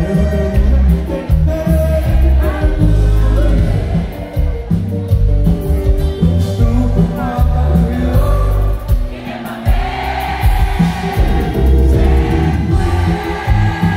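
Live grupera band playing a song with electric guitar, keyboards, bass and drums under a sung vocal.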